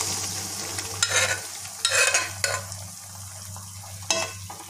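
Cooked greens and moong dal poured into hot oil in an iron kadai, sizzling at first, then a steel ladle stirring and scraping against the pan in four or five short strokes.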